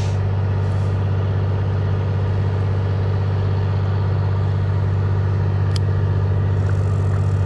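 A steady low hum, constant in pitch and level, with a faint short tick about six seconds in.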